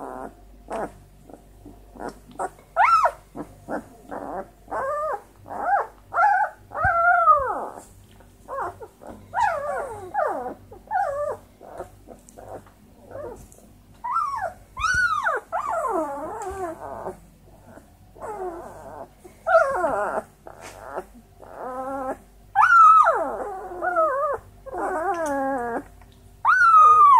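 Twelve-day-old Great Dane puppies whining and squealing in a long series of short, high calls, many of them falling in pitch. The loudest come near the end.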